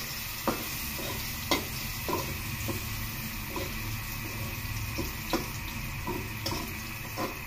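Chopped ingredients sizzling in hot oil in a steel wok as they are sautéed toward browning. A metal spatula stirs them, with a few sharp scrapes and knocks against the wok.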